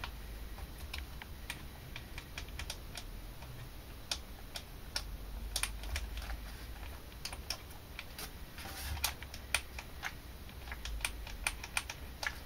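Irregular light plastic clicks and rattles from the front suspension and shock absorber of a 1:8 RC car chassis being wiggled by hand. The front shock is loose and wobbles, which the owner puts down to a missing plastic insert.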